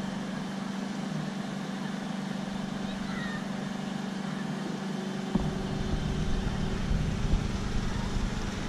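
Street traffic on a seafront road: vehicle engines running and passing, a steady hum with more rumble and a few knocks from about five seconds in.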